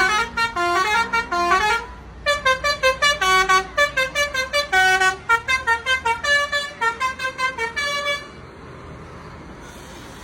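Telolet basuri multi-tone bus horn playing a quick tune of short notes that step up and down in pitch. It breaks off briefly about two seconds in, plays a longer run, then stops about eight seconds in, leaving a low steady background noise.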